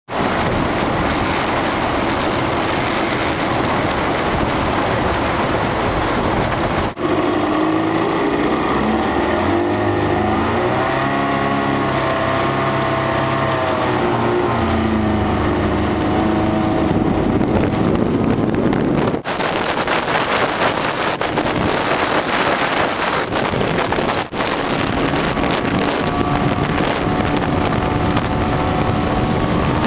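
Freshly rebuilt 1975 Mercury 1500 inline-six two-stroke outboard running hard, pushing the boat at high speed, with wind buffeting the microphone. The engine pitch rises and falls through the middle stretch, then holds steady. The sound breaks off abruptly three times, at roughly a quarter, two-thirds and four-fifths of the way through.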